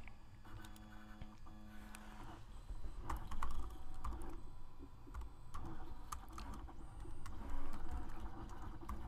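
Computer keyboard keystrokes, irregular, light clicks as a username and password are typed, sparse at first and busier from about three seconds in.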